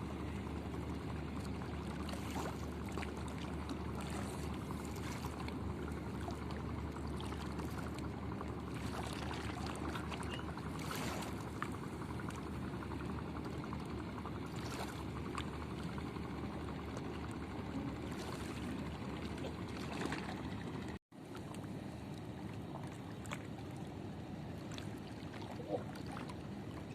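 Water lapping and trickling against a small boat, a steady wash of noise with a few faint knocks. The sound cuts out for a split second about 21 seconds in.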